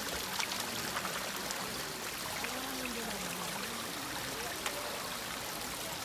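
Shallow stream flowing over rocks: a steady trickling and rushing of water.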